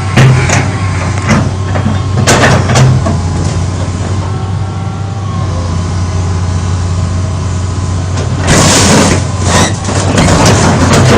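A 20-ton excavator's diesel engine running steadily under load, with sharp bangs and crunches as it smashes a Nissan Laurel's car body, and a loud rushing noise about eight and a half seconds in.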